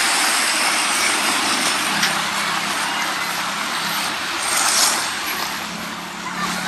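Waves washing on a beach: a steady rushing hiss that swells briefly about four and a half seconds in. From about two seconds in, a faint low hum runs underneath.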